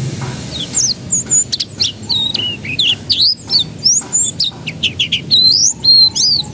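Canary singing: a fast, varied run of chirps, trills and whistled pitch glides, starting under a second in.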